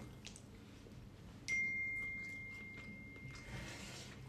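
A single clear, bell-like ring, struck about a second and a half in and fading away over nearly two seconds.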